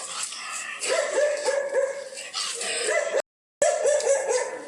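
Dogs barking angrily in quick runs of several barks a second. The sound cuts out completely for a moment about three seconds in, then the barking starts again.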